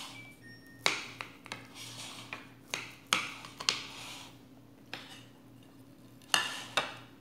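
Metal knife and fork clinking and scraping on a ceramic plate while cutting a pancake, in a string of sharp clicks about every half second. Two louder clinks near the end, as a plate is handled.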